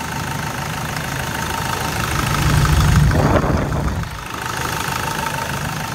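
SsangYong Actyon turbo diesel engine idling steadily with no clicking, its timing-chain tensioner screw freshly replaced. About halfway through it briefly grows louder, then settles back.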